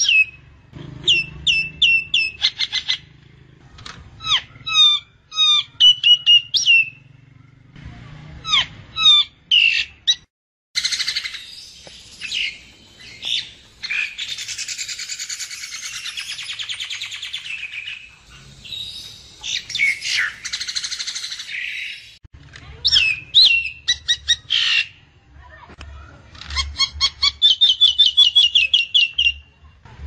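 Common myna calling: runs of short, sharp whistled notes that slide down in pitch, broken by a long stretch of harsh, rasping chatter in the middle, and a fast run of notes near the end.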